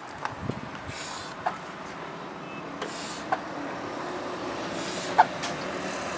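Short puffs of breath about every two seconds as a butcher blows into a slaughtered sheep's leg to inflate the hide for skinning, over steady street noise with traffic. A few light clicks.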